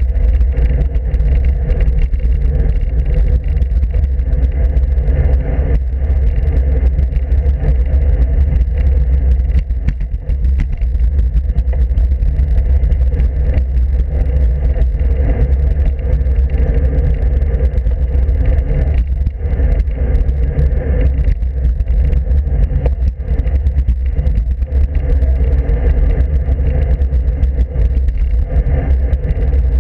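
Wind rumbling on the microphone of a camera mounted on a moving road bike, a steady, loud low rumble mixed with road noise from the riding.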